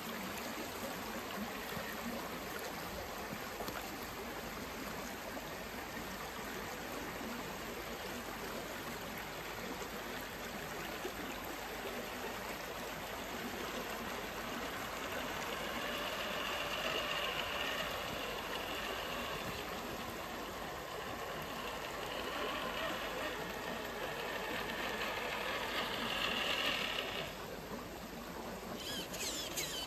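Steady rush of a fast-flowing creek, with the faint whine of a small RC crawler's electric motor and gears over it as the truck drives along the bank; the whine grows stronger in the second half and both drop away sharply a couple of seconds before the end.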